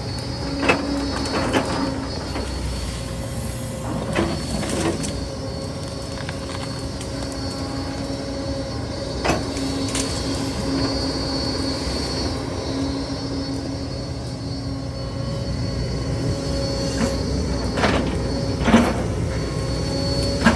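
Excavator engine running steadily with a whining hum, broken now and then by sharp metallic clanks, about eight in all, the loudest near the start and near the end.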